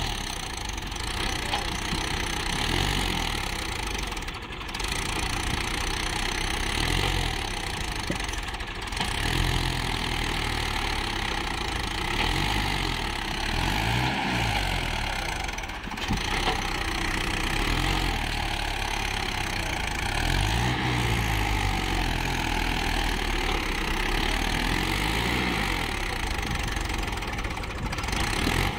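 Swaraj tractors' diesel engines working hard in deep sand while a tractor hauls a trailer, the wheels digging in. The engine note rises and falls several times as the load comes and goes.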